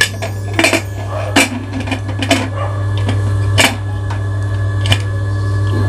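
Aluminium pressure cooker lid being put in and closed: a series of metallic clanks and knocks, some briefly ringing, over a steady low hum.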